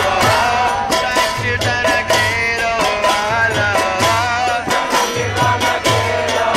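Devotional kirtan-style bhajan: a male lead voice sings into a microphone with the group singing along, over a steady rhythm of mridanga drum beats and clashing brass kartal hand cymbals.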